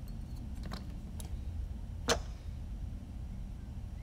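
Small tool-handling sounds at a soldering bench: a few faint clicks and one sharp tick about two seconds in, over a low steady hum.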